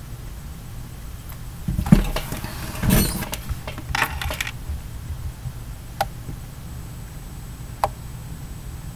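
Handling noises close to the microphone: a few short bursts of rustling and knocking as a person moves up to the camera and sits down, followed by two single clicks.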